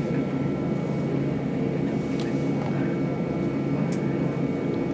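Steady cabin hum inside an Airbus A320-232 taxiing, its IAE V2500 engines at low thrust, with a few faint clicks.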